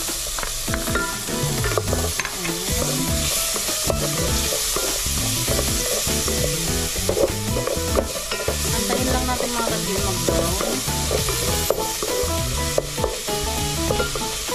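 Chopped garlic and onion sizzling in melted margarine in an aluminium pot, stirred and scraped against the pot bottom with a wooden spatula. Background music plays underneath.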